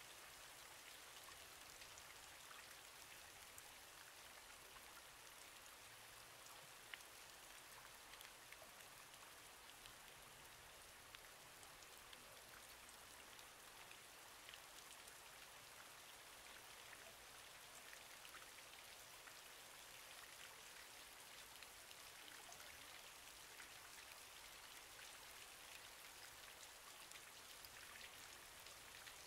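Near silence: a faint, steady hiss with scattered tiny clicks.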